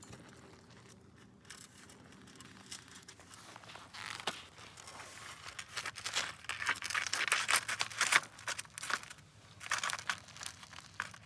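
Irregular scratchy crinkling and rubbing handling noise, faint at first and denser and louder from about four seconds in.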